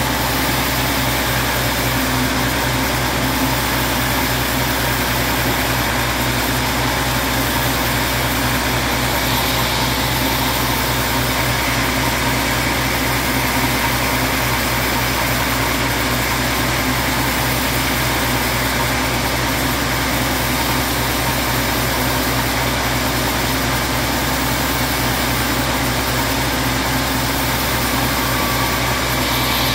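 Large sawmill band saw running steadily as its blade rips lengthwise through a block of teak.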